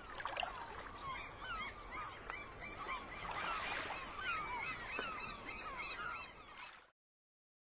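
A flock of birds calling over one another: many short calls that slide up and down in pitch, overlapping continuously, then fading out about seven seconds in.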